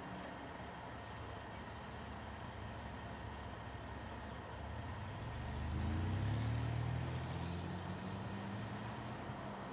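Fire engine's diesel engine running steadily, swelling louder with a rising pitch a little past halfway, then settling back.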